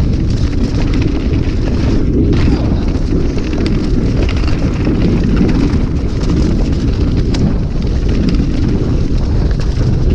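Mountain bike descending fast over wet mud and slush: heavy wind rumble on the microphone and tyre noise, with frequent small rattles and knocks from the bike over the rough ground.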